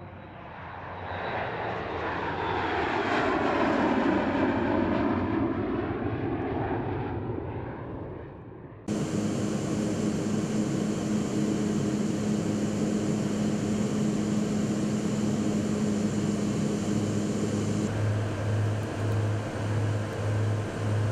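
Jet engine of the MQ-25 unmanned tanker passing the camera on its takeoff climb: it rises to a peak about four seconds in, then fades. After an abrupt cut, a steady aircraft engine drone with wind rush, heard from the camera aircraft in flight, takes over; a low throb pulses about twice a second near the end.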